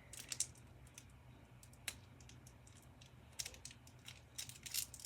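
Faint crinkling and clicking of a small sealed plastic bag being handled and picked at by hand, in scattered short bursts, with one sharp click about two seconds in and busier rustling in the second half.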